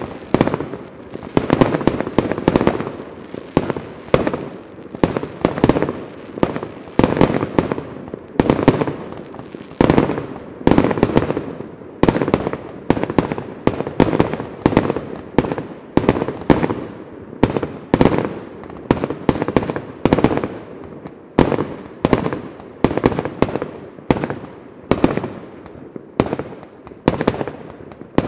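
Professional display fireworks: aerial shells bursting in quick succession, about one to two sharp bangs a second, each trailing off in an echoing rumble.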